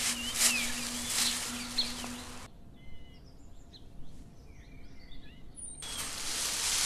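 Outdoor ambience: a steady hiss with scattered short bird chirps and a faint low hum. About two and a half seconds in, the hiss and hum cut out abruptly, leaving only faint chirps for about three seconds, then the hiss returns.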